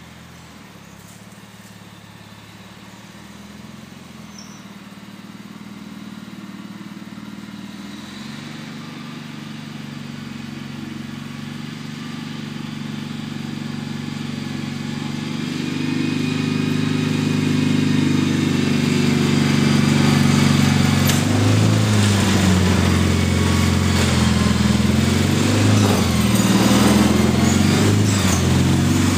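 Gravely garden tractor's engine running steadily while the tractor plows snow, growing louder as the tractor approaches over about twenty seconds. The pitch wavers a little near the end as it draws close.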